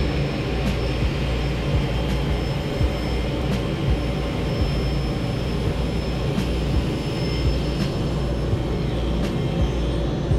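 A woodworking shop machine running steadily: a continuous, loud drone with a strong low hum and faint, regular ticks.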